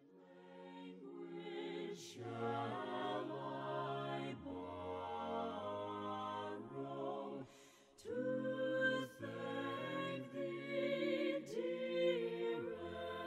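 Quiet a cappella hymn singing, voices in harmony holding sustained chords over a low bass part, fading in at the start and pausing briefly twice.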